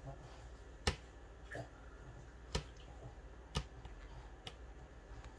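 A few short, sharp plastic clicks, about four standing out over several seconds, from handling a miniature toy baby doll and fitting its tiny hat onto its head.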